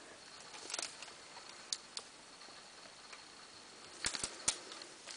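Hard bars of salt soap being handled and set down on a marble countertop: scattered light knocks and scrapes, with a quick run of several sharp taps near the end.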